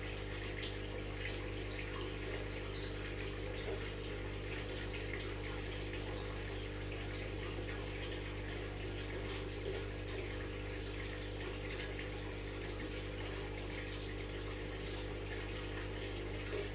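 Aquarium water bubbling and trickling steadily, over the low hum of the tank's pump.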